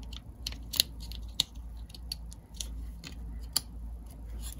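AA alkaline batteries being pushed into the plastic battery holder of a small circuit board: a run of sharp clicks and plastic rattles, the loudest about a second in, a second and a half in, and three and a half seconds in.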